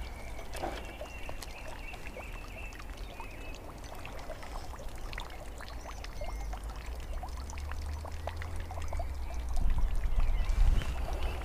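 Outdoor riverbank sound: a low wind rumble on the microphone that grows stronger near the end, gentle water trickling, and scattered small clicks and rustles, with a few faint high chirps.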